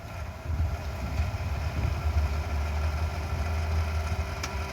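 An engine idling with a steady low rumble, with a short click near the end.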